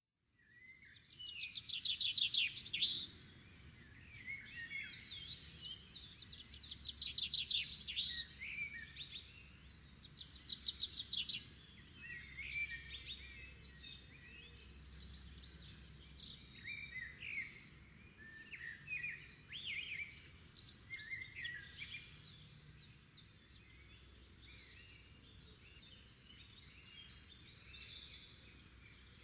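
Several birds singing together. Loud rapid trills come in the first dozen seconds, then a busy mix of shorter chirps and calls that grows a little quieter toward the end.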